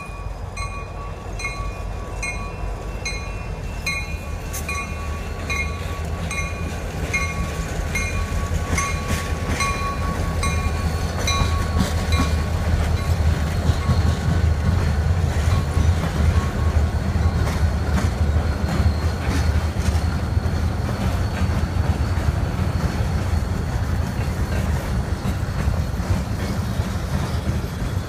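Freight train passing behind two diesel locomotives, an SD40-2 and a GP40-2LW, their EMD 16-cylinder engines rumbling louder as they go by near the middle, then freight cars rolling past with a steady rail clatter. A bell rings at an even pace through the first dozen seconds.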